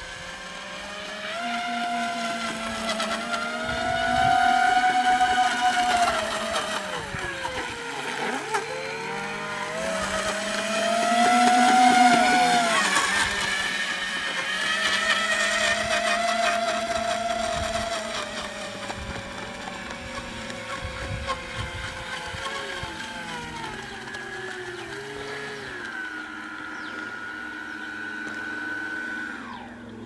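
Small electric motors spinning the air propellers of homemade radio-controlled airboats: a whine that rises and falls in pitch as the throttle changes, loudest around four and twelve seconds in.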